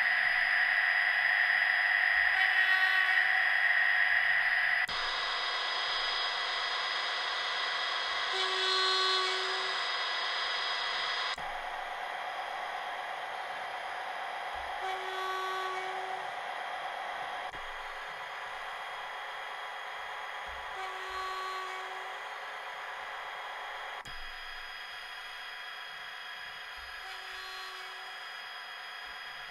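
A DCC sound decoder's Class 57 diesel locomotive engine sound plays through a miniature model-railway speaker, running steadily with almost no bass. The sound steps down in loudness about every six seconds, and a short hum recurs once in each step.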